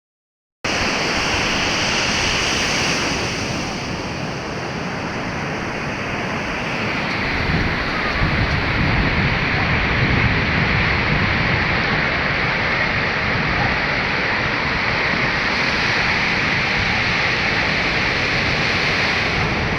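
Sea surf washing steadily onto a sandy beach, a continuous rush of breaking waves that swells a little in the middle, with wind rumbling on the microphone.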